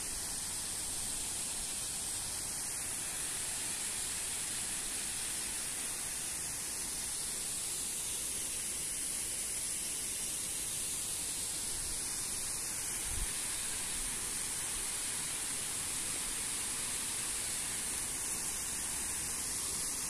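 Waterfall rushing steadily, a continuous hiss of falling water with a thin high steady hiss on top.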